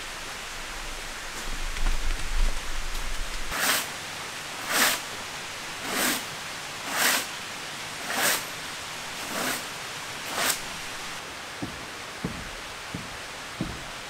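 Seven short swishing strokes about a second apart over a steady hiss, followed by a few light knocks.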